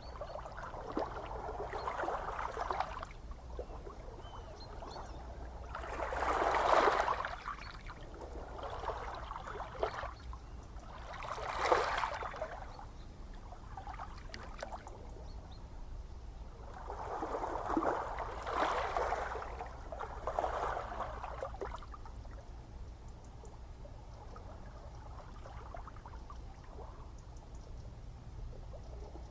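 Gentle ocean waves breaking and washing ashore, each swell rising and fading over a second or two. The two loudest break about seven and twelve seconds in, a longer wash follows around eighteen to twenty-one seconds, and the water is quieter near the end, over a steady low rumble of the sea.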